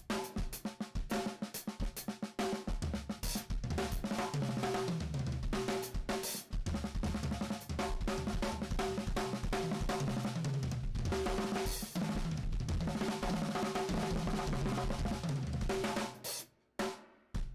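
Drum kit played fast and busy, with kick, snare, hi-hat and cymbal hits, over pitched music with a moving bass line. About sixteen seconds in the steady playing stops and a few last separate hits follow.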